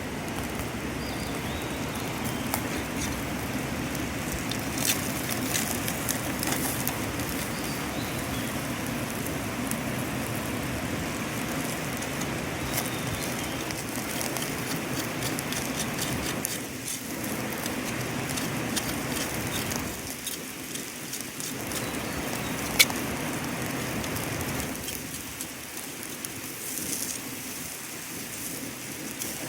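Meat sizzling on a barbecue grill, a steady hiss with crackles and pops as its juices and fat drip into the heat, and one sharp pop about 23 seconds in.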